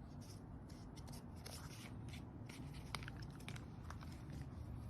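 Faint handling sounds: light rustling and scattered small clicks over a low steady hum.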